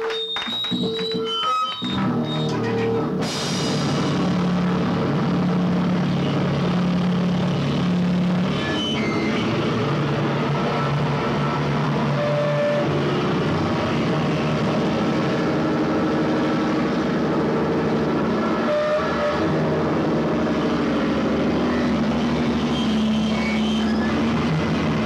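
Live rock band playing loud amplified guitar and drums. A few held tones give way about two seconds in to a dense, distorted wall of sound with steady low notes that runs on without a break.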